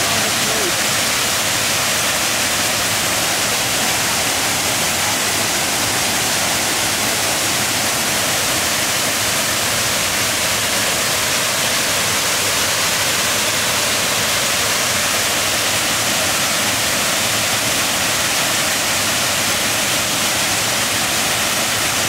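Main Banyu Wana Amertha waterfall, several strands of water pouring down a cliff into a plunge pool, making a steady, unbroken rush.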